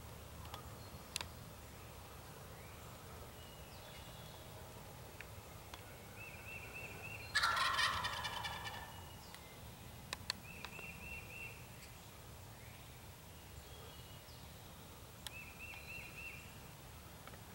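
Eastern wild turkey gobbler gobbling once, loud and rattling, about seven seconds in, trailing off over a second and a half. Fainter short, high calls come now and then before and after it.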